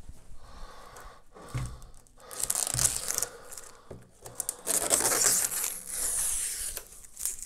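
Clear protective plastic film being peeled off a microwave oven's door, a rasping rip that comes in stretches and is loudest in the second half.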